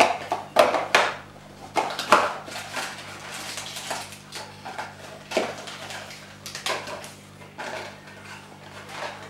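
Cardboard box of a Corona self-test kit being opened and its wrapped contents handled on a table: a run of knocks, taps and rustles of cardboard and packets, loudest in the first couple of seconds.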